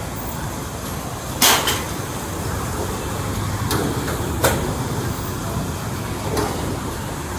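A handful of sharp knocks and clatters as a metal-framed folding table is set down and shifted on a tiled floor, the loudest about a second and a half in. A steady rumble of street traffic runs underneath.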